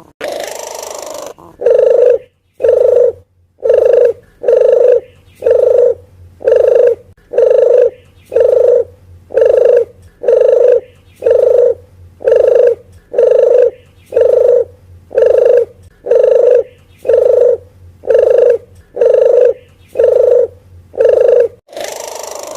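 Puter geni dove calling as a bird lure: a longer call at the start, then a steady run of about twenty short cooing notes, roughly one a second.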